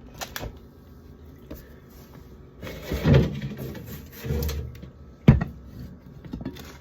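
Food jars and containers being handled while a refrigerator is cleared out: a few light clicks and rustles, and a sharp clunk a little past five seconds in as something is set down or knocked.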